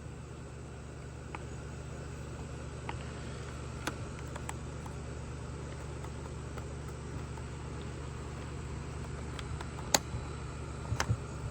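Steady low background hum with a faint hiss, broken by a few soft clicks, one about four seconds in and two near the end.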